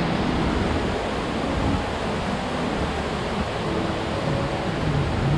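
Fast mountain creek tumbling over rocks in a steady, even rush of white water.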